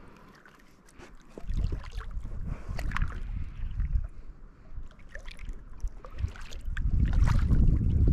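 Packraft being paddled on a lake: repeated paddle strokes splashing in the water over a low rumble, starting about a second and a half in after a near-quiet moment.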